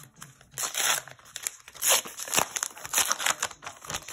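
Trading-card pack wrapper being torn open and crinkled in the hands, in several loud rustling bursts.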